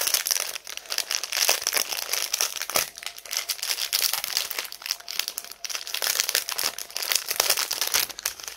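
Clear plastic bags crinkling and rustling as they are handled, a dense run of quick crackles throughout.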